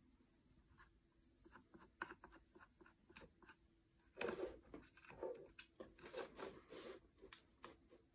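Faint rustling, scraping and light clicks of hands handling yarn and an electric spinning wheel, with a cluster of louder scrapes about four to seven seconds in.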